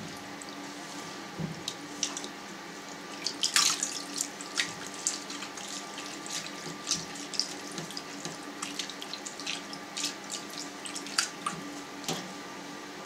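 Cheese curd being packed and pressed by hand into a gauze-lined mould sunk in warm whey in a stainless steel vat: irregular splashes, drips and squelches of whey, busiest a few seconds in, over a faint steady hum.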